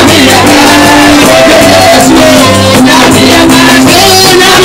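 Loud live praise-and-worship music: voices singing over a band with a steady percussion beat.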